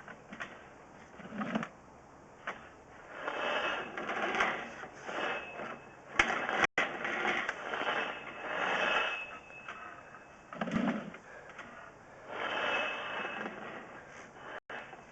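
Steel drain cable scraping and rattling in bursts of a second or two as it is fed and turned by hand, with a few sharp knocks in between.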